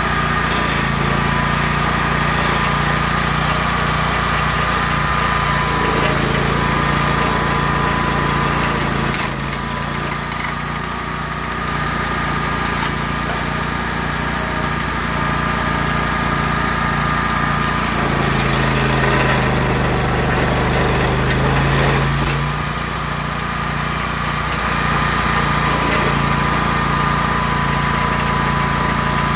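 Rayco RG 1625 stump grinder running under power as its Greenteeth cutter wheel grinds into a stump. The engine runs steadily, its note dipping and recovering a couple of times as the wheel bites, over a steady high whine.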